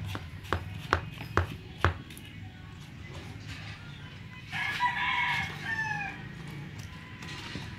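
A rooster crows once, a call of about a second and a half that falls in pitch at its end. Earlier there are four sharp knocks about half a second apart.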